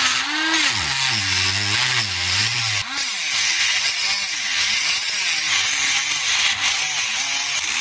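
Handheld rotary tool with an abrasive cut-off disc grinding through the metal tube of an electric immersion heater element. The motor's whine sags and wavers in pitch under the load, over a steady gritty grinding hiss.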